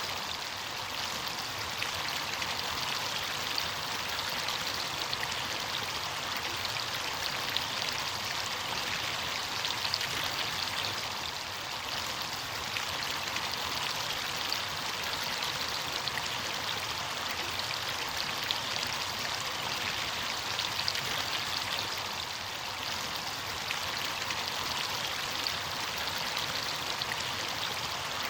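Running water, a steady rush with fine splashing throughout.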